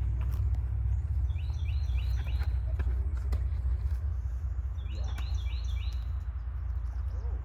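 A bird singing two short phrases of quickly repeated high notes, about a second and five seconds in, over a steady low rumble.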